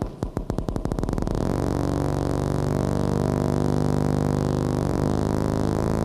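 Electronic synthesizer music: a pulsing sound that speeds up over the first second or so until the pulses merge into a steady droning chord.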